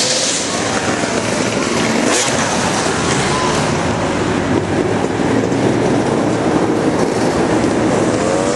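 Heavy wind buffeting the microphone, with motocross bike engines running in the background.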